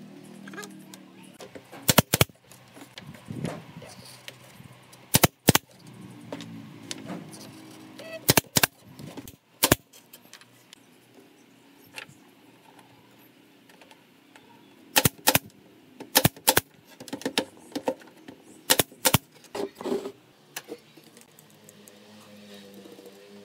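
Nail gun driving nails into wood: about a dozen sharp shots at irregular intervals, most of them heard as quick double clicks.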